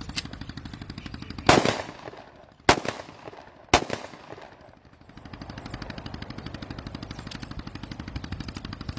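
9mm Glock 17 pistol firing four loud shots in the open. A lighter shot comes at the start, the loudest about a second and a half in, and two more about a second apart a little later. A steady, fast, low pulsing noise runs underneath.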